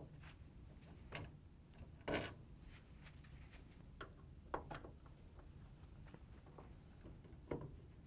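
Phillips screwdriver backing screws out of a plastic microwave grille: a few faint, scattered clicks and scrapes, the loudest about two seconds in.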